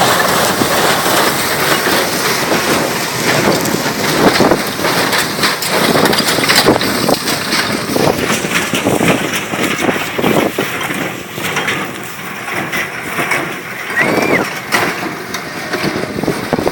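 A David Brown 880 tractor running with a Jones Mk 12T baler working behind it, mixed with irregular knocks and rustles and wind buffeting the microphone.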